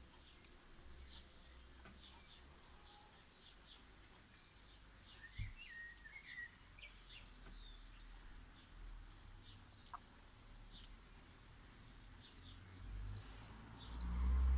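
Small garden birds chirping and twittering, many short high calls one after another, with a lower warbled phrase about five seconds in. A low rumble builds near the end.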